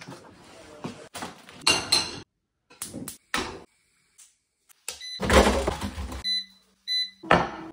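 Chopped-up kitchen handling sounds: short bursts of rustling and clatter cut off by sudden silences, the loudest a long rustle about five seconds in. Then come two short electronic appliance beeps over a low hum.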